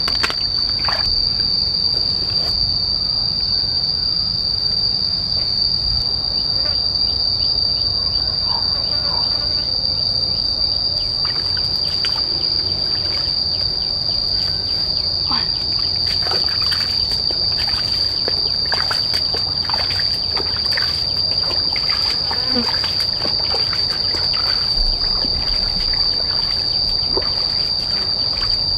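Insects droning outdoors as one steady, loud, high-pitched note, with scattered faint clicks and knocks.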